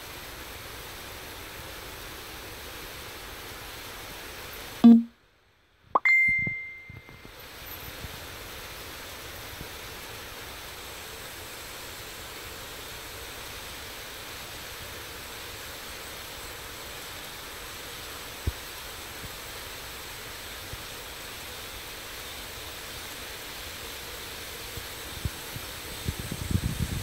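Model freight train rolling around a track loop: a steady hiss of wheels on rails. About five seconds in comes a brief thump and a single ringing ding. Near the end, fast clicking of wheels over the rail joints grows louder as the locomotives come close.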